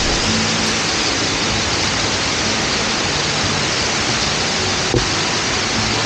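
Waterfall and water cascading down stepped stone weirs: a steady, even rush of falling water, with a single sharp click about five seconds in.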